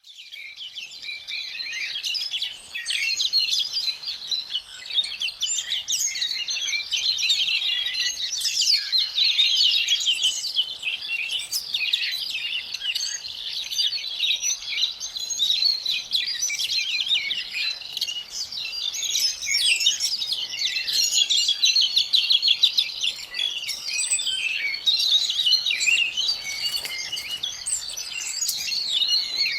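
Dawn chorus of many small songbirds chirping and trilling at once in a dense, continuous mix, fading in from silence over the first couple of seconds.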